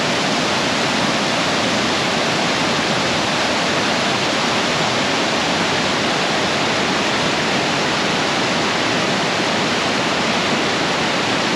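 Mountain waterfall: a loud, steady rush of falling water with no let-up.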